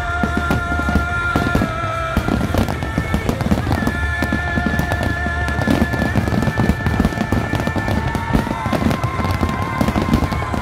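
Dense barrage of aerial firework shells bursting and crackling in rapid succession over a low rumble, with music playing alongside in long held notes.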